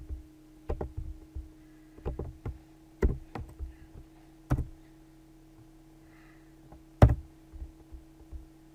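Computer keyboard keys and mouse buttons clicking in irregular, scattered taps, the loudest about seven seconds in, over a faint steady hum.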